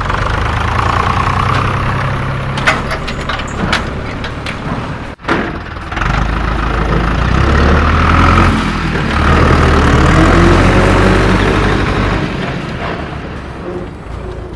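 A heavy vehicle's engine running steadily, with a few sharp clicks about three seconds in and a brief cut-out about five seconds in, after which it runs on louder with some rising and falling pitch before fading near the end.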